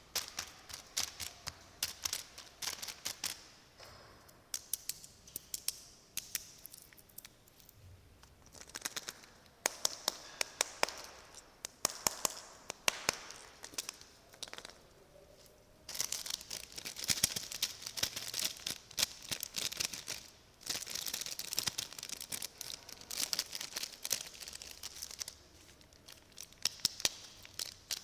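Plastic snack wrappers being crinkled and torn open, in bursts of crackling with short pauses between them.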